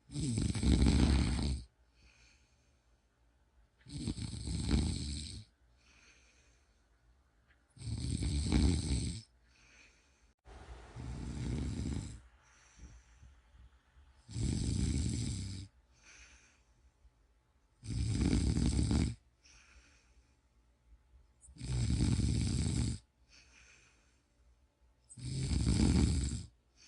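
A person snoring in deep sleep: eight loud, rasping snores about every three and a half seconds, each lasting a second or so, with fainter breaths between them.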